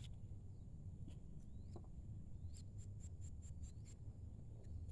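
Quiet outdoor ambience: a low steady rumble with scattered faint clicks and a few brief faint chirps, and a short run of about six quick high ticks, about five a second, in the middle.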